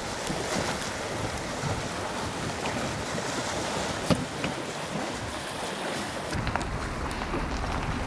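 Steady outdoor wind and lake water washing against the shore, with a few faint clicks and one sharper knock about four seconds in.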